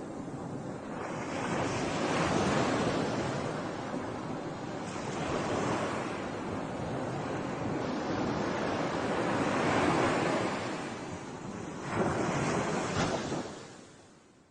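Sea waves surging and washing in, swelling and ebbing several times, with wind buffeting the microphone. The sound fades out near the end.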